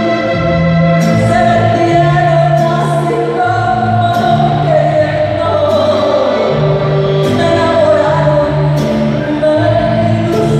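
A woman singing a slow song live into a microphone with long held notes, backed by a band with a bass line that moves in steps between sustained notes.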